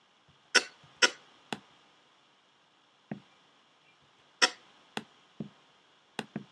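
Sharp clicks of a MacBook keyboard and mouse, about nine in uneven groups: the right arrow key being tapped and the pointer clicked while a box is dragged along frame by frame.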